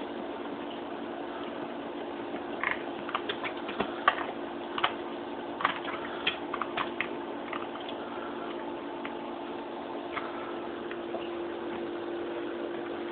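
Small dog pawing and scratching at couch cushions as it digs to bury a rawhide bone: a run of quick scratchy clicks from about two and a half to seven and a half seconds in, over a steady low hum.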